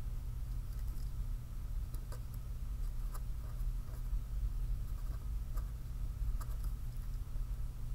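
Marker pen writing on paper: light, irregular ticks and scratches as the tip touches down and moves, over a steady low hum.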